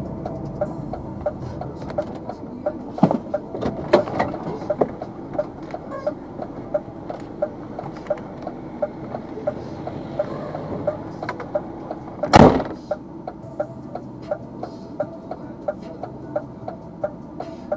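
Hazard-light flasher ticking in a truck cab, about three ticks a second, over the low hum of the truck's running engine. A short loud burst of noise about twelve seconds in.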